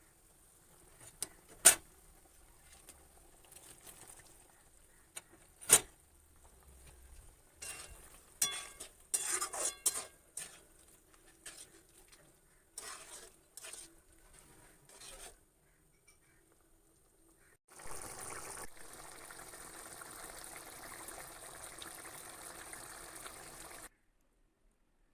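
A metal spoon clinking and scraping against a cooking pan while stirring, with two sharp clinks and then clusters of clinks. After that comes a steady hiss of about six seconds from the pan, which cuts off suddenly.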